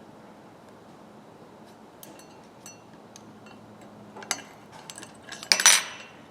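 Light metallic clicks and taps of a screwdriver working against the steel parts of a pipe wrench while its spring is pressed down. About five and a half seconds in there is a louder burst of metal clinking and scraping.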